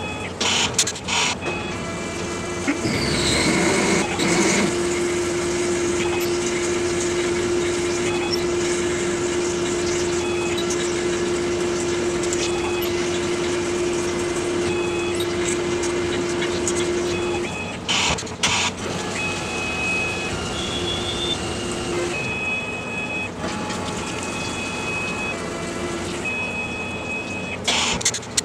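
CNC lathe cutting 304 stainless under flood coolant, with a steady spray hiss throughout. A steady tone holds while the drill cuts the part, from about four seconds in until about seventeen seconds in. Sharp clunks come near the start, at about eighteen seconds and near the end, as the tool turret indexes between tools.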